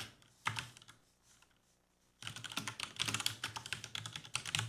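Typing on a computer keyboard: a short run of key clicks about half a second in, a pause of about a second, then quick, steady typing from about two seconds in.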